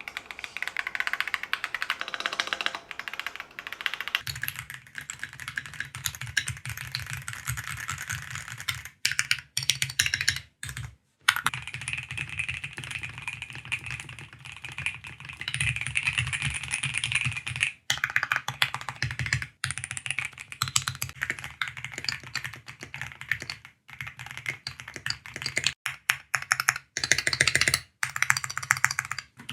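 Fast typing on Keychron mechanical keyboards, a dense run of key clicks, cut off abruptly several times as the typing moves from one keyboard to another.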